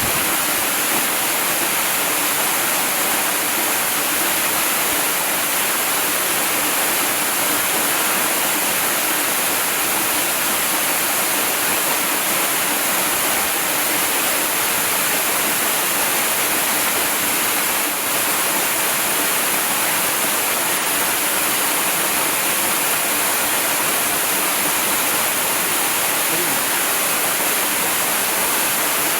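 Waterfall: a steady, even rush of falling water, bright and hissy, with little deep rumble.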